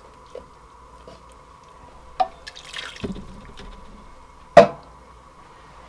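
Rinse water from an emptied tomato can dripping and splashing into a pot of soup, a few drips and one short pour. Near the end comes a single sharp knock, the loudest sound, with a brief ring.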